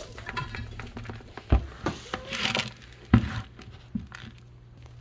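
A red plastic feeding bowl of chopped zucchini and chicory being handled and tipped, giving a few light knocks of plastic, about three, and a brief rustle of the vegetable pieces.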